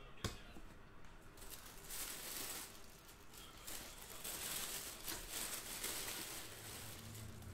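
Faint rustling and scraping of a cardboard box being opened and handled by hand, in several stretches, with one sharp click just after the start.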